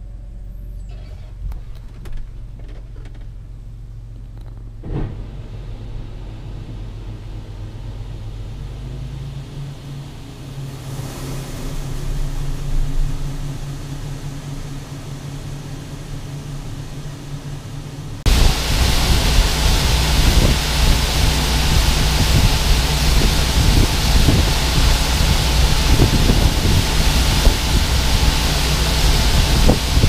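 Truck's diesel engine idling low. About eighteen seconds in, a much louder steady rush of machinery sets in suddenly: the tractor-driven grain cart auger unloading soybeans into the semi's hopper trailer, with the tractor engine running under it.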